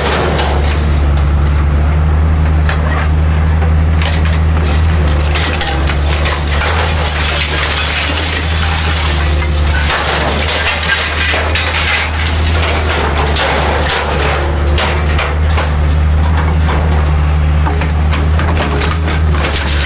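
Hydraulic excavator's diesel engine running steadily while its rotating scrap-sorting grapple drags, lifts and pulls tangled scrap steel, with repeated metal clanking, scraping and rattling over the engine.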